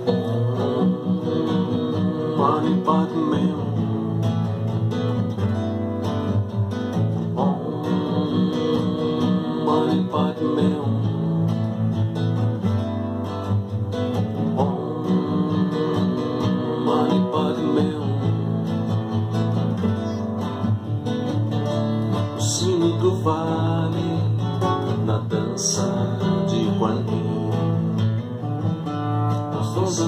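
Nylon-string classical guitar played solo, chords played one after another without a break.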